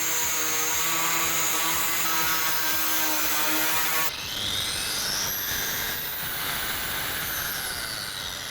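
Brushless 1300 W angle grinder running with no load at a steady pitch. About four seconds in it is switched off, and the motor and disc spin down with a falling whine that slowly fades.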